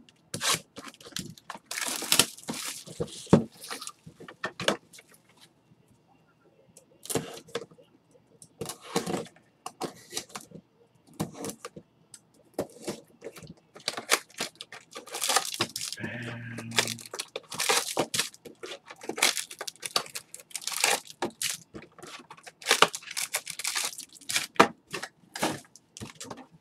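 Plastic wrapping crinkling and tearing in uneven bursts, with sharp clicks and rustles of card boxes being handled, as sealed trading-card boxes are opened. A short low hum sounds about sixteen seconds in.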